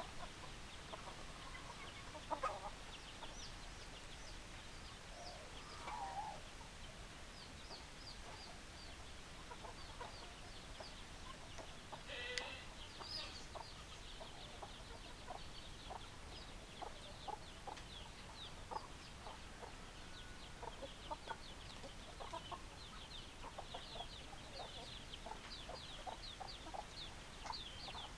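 Chickens clucking, with short, high-pitched chirps repeating throughout and a louder call about twelve seconds in.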